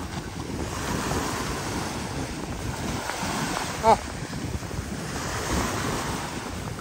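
Wind blowing across the microphone over a steady wash of water, with a brief vocal call about four seconds in.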